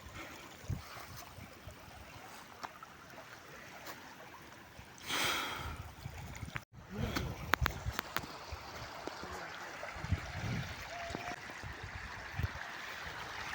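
Water running steadily, like a small stream or outflow, with a brief louder rush about five seconds in and scattered clicks and low thumps.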